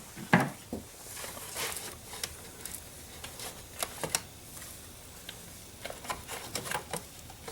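Scattered light clicks and knocks of hands handling the old car battery and its plastic cover in a cramped engine bay, with a few sharper knocks about half a second and four seconds in.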